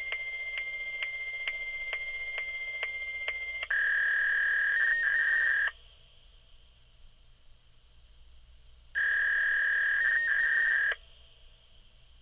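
Fax machine data tones over a phone line. First comes a steady high tone with about two clicks a second. Then two louder steady tones of about two seconds each follow, separated by a few seconds of faint line hiss.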